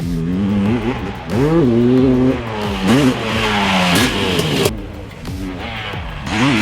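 Honda CR500 two-stroke dirt bike engine revving up and down as the throttle is opened and closed, its pitch rising and falling several times, with a brief drop about five seconds in.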